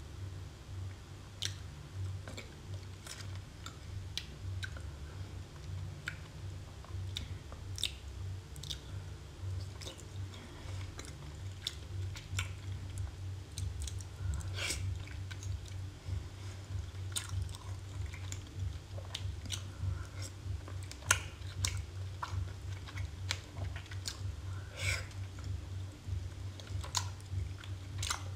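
Seafood being chewed and eaten, heard as irregular sharp mouth clicks and smacks, one louder about two-thirds of the way through, over a steady low hum.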